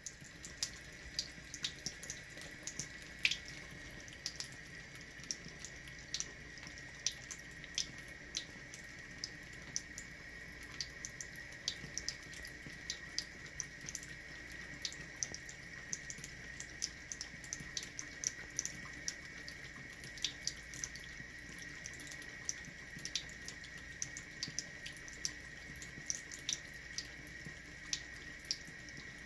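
A thin stream of water from a bathroom faucet runs steadily into the sink basin. Irregular light clicks and splashes, a few a second, come from a cat's tongue lapping at the stream.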